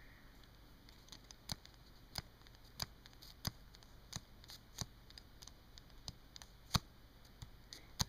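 Metal pen on paper making a steady run of small sharp taps, about three every two seconds, with one much louder tap near the end.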